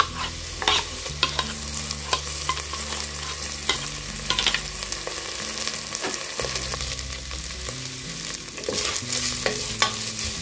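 Onions and ginger-garlic paste sizzling in hot oil in a stainless steel pressure cooker, a wooden spatula stirring and scraping the pot in short clicks. The sizzle and stirring get livelier near the end as the paste is fried until its raw smell goes.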